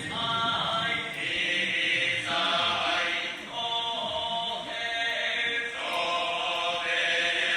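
Buddhist chanting, likely Shingon: long held notes that shift in pitch every second or so.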